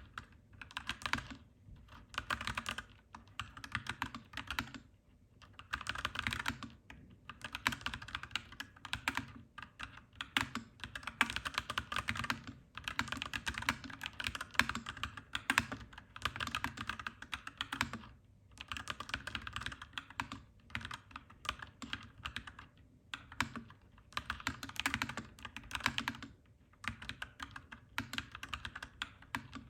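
Clacky mechanical keyboard typing in steady runs of keystrokes, broken by short pauses every few seconds.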